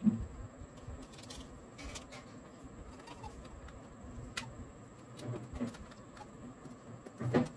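Faint handling of corrugated cardboard as a pin is pushed through a cardboard strip: small clicks, scrapes and rustles, with a soft knock near the end, over a faint steady hum.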